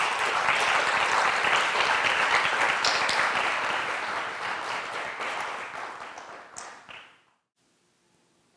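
Audience applauding, slowly fading and then cut off suddenly about seven seconds in.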